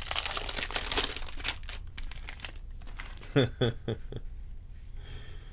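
Crinkling and tearing of a foil trading-card pack wrapper being handled and ripped open, followed about three and a half seconds in by a quick run of four short pitched pulses.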